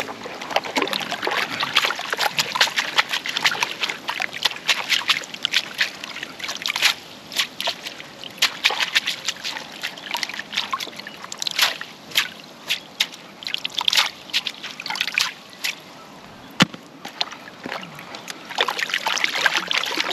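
Water sloshing and splashing in a plastic gold pan as a sluice mat is rinsed and scrubbed out in a tub of muddy water, in many short, irregular splashes. The sloshing grows louder and more continuous near the end.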